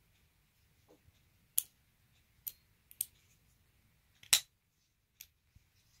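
Benchmade Stryker automatic folding knife being worked by hand: a series of about five sharp metallic clicks and snaps, the loudest about four seconds in as the spring-loaded blade fires open and locks.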